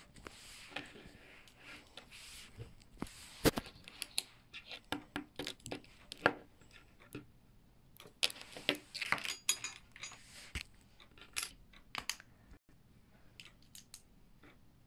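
LEGO plastic bricks clicking and snapping together while being handled and sorted, a run of irregular sharp clicks with a few louder snaps.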